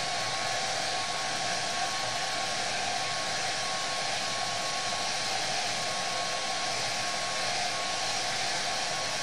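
Handheld hair dryer blowing steadily, a rush of air with a thin steady whine, drying freshly airbrushed paint on a suede skate.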